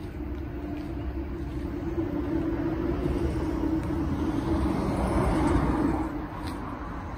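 A motor vehicle's rumble with a steady hum, growing louder and then dropping away suddenly about six seconds in.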